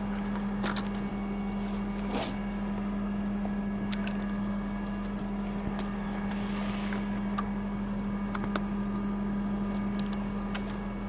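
Crane truck's engine running at a steady speed, a constant hum. Scattered light clicks and jingles are heard over it.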